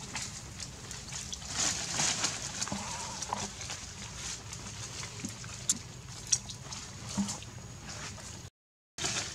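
Macaques climbing in a tree: scattered short snaps and rustles of bark and leaves over a steady outdoor background, with a few faint animal calls. The sound cuts out completely for about half a second near the end.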